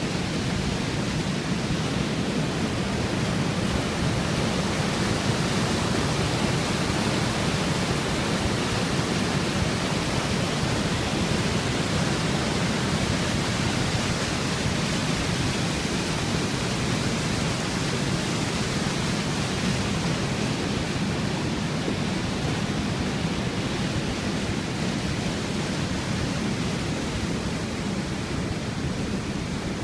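The River Irwell in flood pouring over a weir: a steady rush of churning white water, easing slightly near the end.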